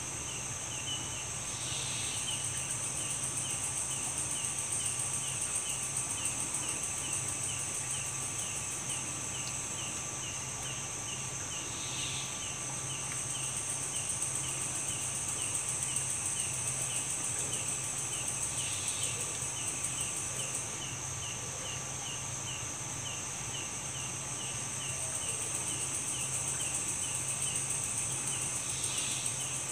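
Night insect chorus: a steady high-pitched buzz of insects, with a cricket chirping about twice a second and a short call every seven to ten seconds, over a steady low hum.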